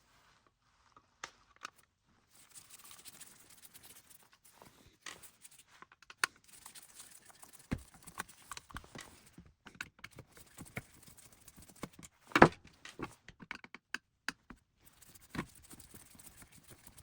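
Small clicks, taps and scraping of screws being undone and lifted out and of the robot vacuum's plastic housing being handled, with a sharper knock about twelve seconds in.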